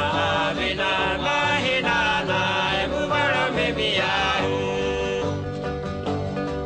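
Background music: a song with a singing voice over a steady bass beat.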